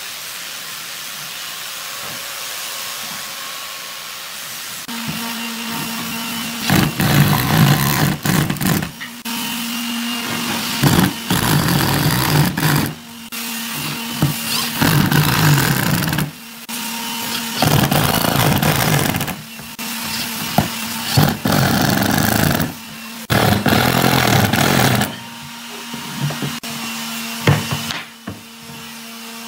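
Power drill driving wood screws into a pine rail, in about seven bursts of a second or two each with short pauses between.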